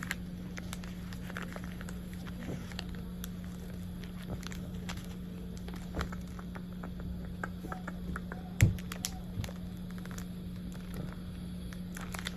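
Light clicks and taps of trading cards and packaging being handled, over a steady low hum, with one louder knock about two-thirds of the way through.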